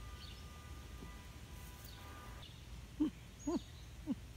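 A faint steady hum of several tones that stops about halfway through, then three short, low hooting calls about half a second apart. Faint high chirps of small birds sound in the background.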